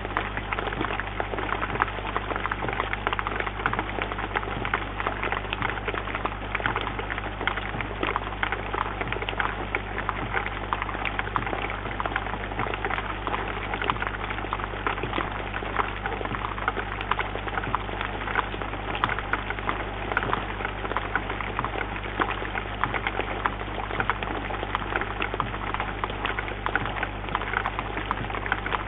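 Steady rain: a dense, even patter of raindrops striking a bird feeder, picked up close by a microphone in the feeder. A steady low hum runs underneath.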